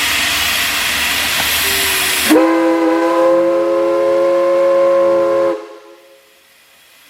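Steam hissing loudly for about two seconds. Then a multi-chime steam whistle sounds a chord, its pitch rising briefly as it opens, holds for about three seconds and cuts off.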